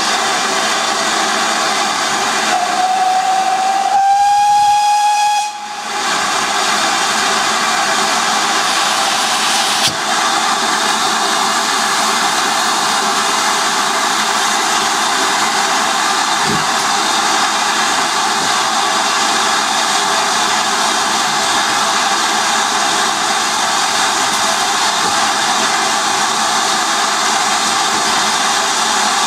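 Steam escaping from GWR 52xx 2-8-0 tank locomotive no. 5238 Goliath in a loud, steady hiss. The engine's steam whistle sounds once about three seconds in, rising slightly in pitch, and lasts about three seconds.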